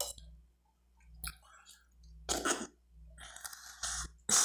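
Close-up eating sounds: a person chewing, with wet mouth clicks coming in several short bursts separated by brief pauses.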